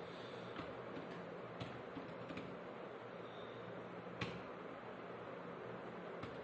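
A few faint, scattered computer keyboard key presses over a steady low hum and hiss of room noise.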